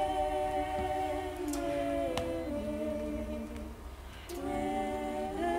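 Several voices humming a slow hymn in harmony, in long held chords that change about two seconds in. The humming drops away briefly near four seconds, then comes back.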